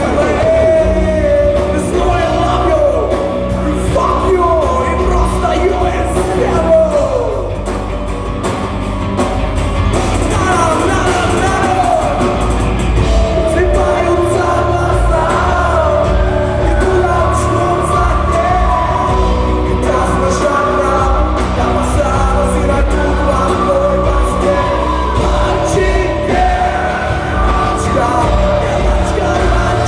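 A rock band playing live in concert, loud and continuous, with a singer's voice and yells over it.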